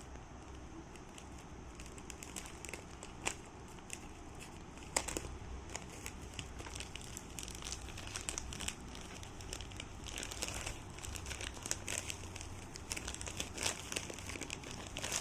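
Packaging being handled and unwrapped in an unboxing: crinkling and crackling with scattered sharp clicks, getting busier in the second half.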